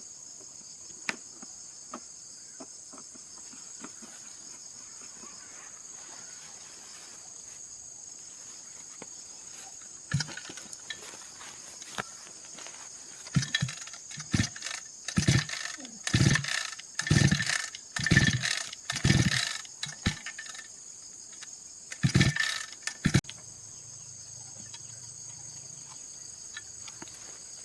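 Crickets and other insects chirping steadily. Past the middle, a run of about ten loud short noises comes roughly once a second, work sounds on the machine.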